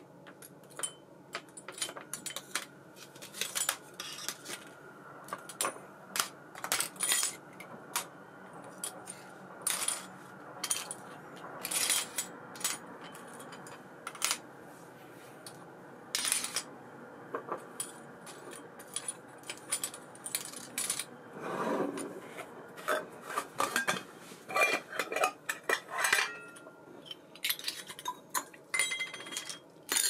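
Small metal parts and tools clicking and clinking irregularly as an ABU Ambassadeur 2500C baitcasting reel is handled and worked on. The clicks come singly and in short runs, thickest about three-quarters of the way through.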